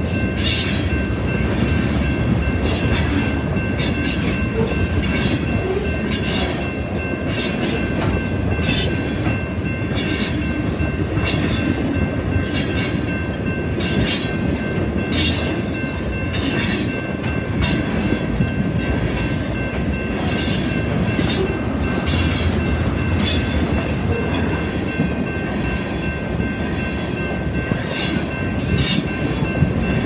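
Freight train cars rolling past at close range: a steady rumble with wheels clacking over the rail, about one or two clacks a second.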